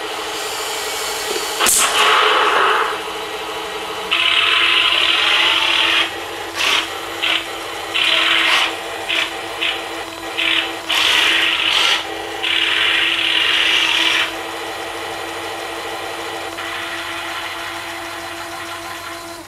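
Radio-controlled airsoft model tank, a Tiger I replica, in action. Its built-in speaker plays a steady electronic engine drone, with repeated harsher bursts of motor and sound-effect gunfire over it. A sharp crack comes about two seconds in.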